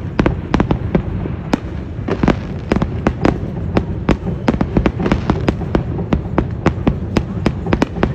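Fireworks display: a rapid, irregular string of sharp bangs, several a second, over a continuous low rumble of bursts.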